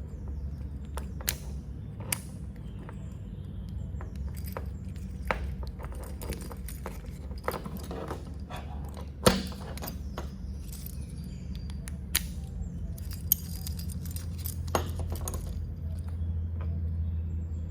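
Stainless steel screwdriver bits clicking and tapping as they are handled, irregular sharp metallic clicks with one louder knock about nine seconds in, over a steady low hum.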